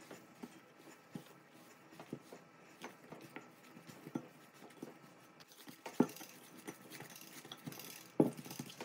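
Hands kneading crumbly shortcrust dough in a glass bowl, gathering it into a ball: soft, irregular squishes and pats. A couple of louder thumps come about six seconds in and again just after eight seconds.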